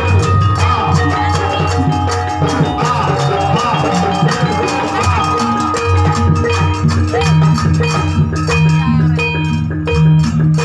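Loud music accompanying a Javanese Garuda bird dance, with fast, steady drumming and held melodic notes over a strong bass line.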